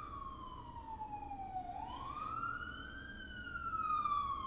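Siren wailing: a single tone slowly falls, then rises and falls again, each sweep taking about three seconds.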